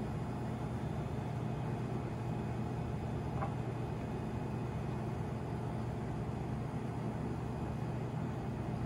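Steady low hum of kitchen machinery, with one faint tap about three and a half seconds in.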